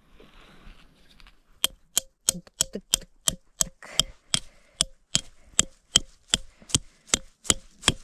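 A hammer driving a tent peg into the ground: a steady run of sharp blows, about three a second, each with a brief ring, starting about a second and a half in.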